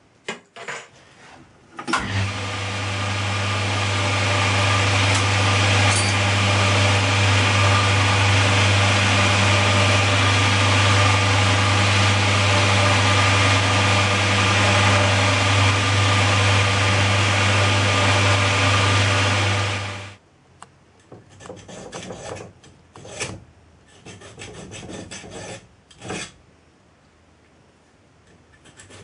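A bench drill's electric motor running with a steady low hum while it drills the end of a small metal eccentric rod; it starts a couple of seconds in and stops suddenly. Then uneven strokes of a hand file rasping on the rod's end, rounding it off in a vice.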